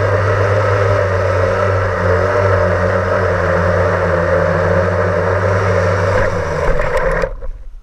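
Blade 350 QX quadcopter's electric motors and propellers whirring steadily, heard from the camera mounted on it; as it lands, the motors spool down and cut off about seven seconds in.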